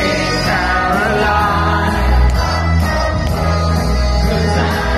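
Loud dance music with singing and a pulsing bass beat over a hall sound system, with the crowd singing along.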